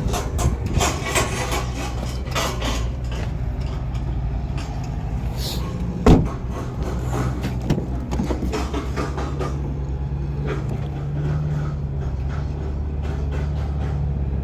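Steady low engine-like hum with scattered clatter and knocks over it, and one sharp knock about six seconds in.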